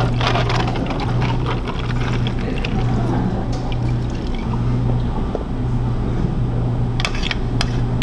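Water, then milk, poured from pitchers over ice into cups, with a steady rush of liquid. A low hum runs underneath, and a few sharp clinks come near the end.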